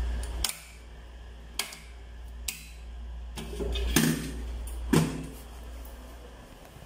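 A circuit breaker snapped on with a sharp click about half a second in, followed by several more scattered sharp clicks and knocks.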